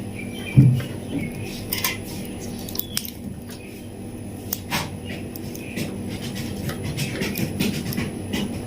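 Packaging being handled: scattered short clicks and rustles, with a louder thump about half a second in.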